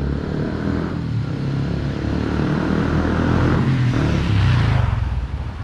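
A small motor scooter's engine running as it approaches and passes close by. It grows louder to a peak about four and a half seconds in, its pitch dropping as it goes past, then it fades.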